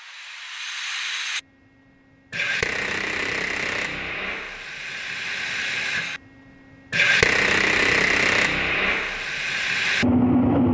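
GAU-8 Avenger 30 mm rotary cannon firing in two long bursts of about four and three seconds, a dense rattling roar, each cut off abruptly. A weaker, rising buzz comes before the first burst.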